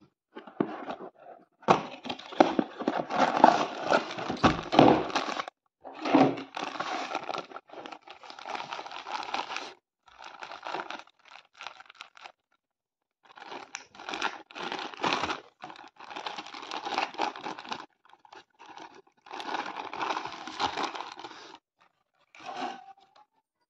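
Kinetic sand packaging being opened and handled: the box and its clear plastic zip-lock bag crinkled and rustled in repeated bursts with short pauses, as the purple sand is pushed out of the bag.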